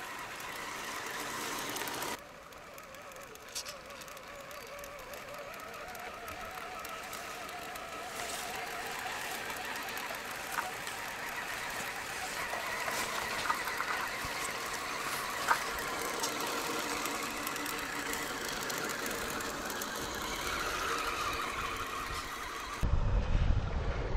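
Electric motor and gearbox of a scale RC off-road truck whining as it crawls through mud and water, the pitch wavering with the throttle, with a few sharp clicks. Near the end the sound cuts to a louder low rumble.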